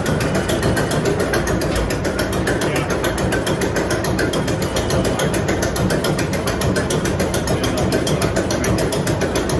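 A big old engine running with a fast, even mechanical clatter, like its valve gear ticking over.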